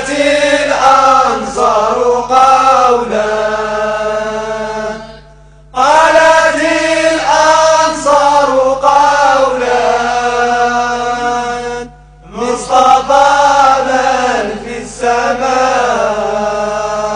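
Arabic devotional chant: a voice sings long melodic phrases, three of them, with short breaks about five and twelve seconds in, over a steady low hum.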